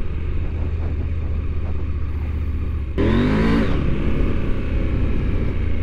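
Adventure motorcycle's engine running steadily on the move, then about halfway through the throttle opens and the engine note rises and gets louder as the bike accelerates.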